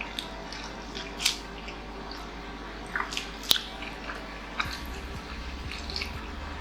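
Close-miked eating sounds: a person chewing, with wet mouth noises and a few short, sharp smacks or crunches scattered through.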